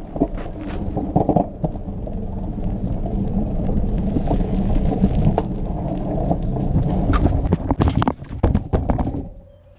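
Rumble and gravel crunch of wheels rolling over a dirt driveway, heard through a camera riding low on the moving vehicle. From about eight seconds in comes a run of sharp clattering knocks as it crashes into a plastic toy, and then the noise cuts off.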